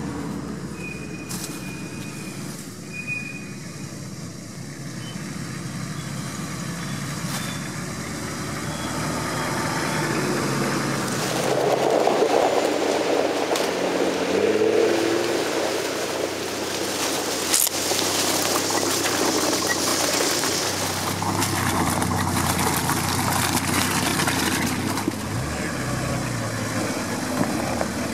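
Nissan Patrol 4x4's engine running at low revs as it crawls over rough off-road ground, revving up about halfway through.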